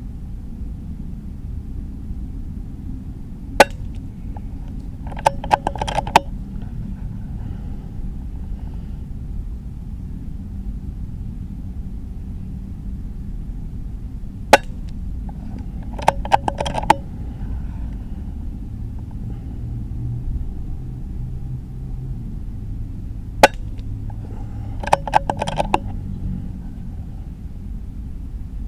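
Suppressed AGT Uragan .22 PCP air rifle fired three times, about ten seconds apart. Each shot is a single sharp crack, followed about a second and a half later by a short run of metallic clicks as the action is cycled for the next pellet. A steady low wind rumble on the microphone runs under it.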